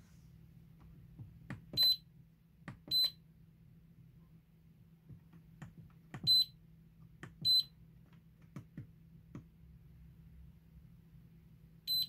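Front-panel buttons of an Allpowers Monster X portable power station being pressed: soft button clicks, some followed by a short high beep. Five beeps in all, in two pairs about a second apart and once more near the end, over a faint low hum.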